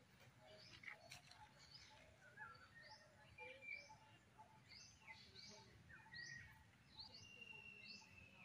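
Faint chirping of several small birds in the trees: short, sharp, downward-sliding calls repeating about once or twice a second, over a faint low background hum.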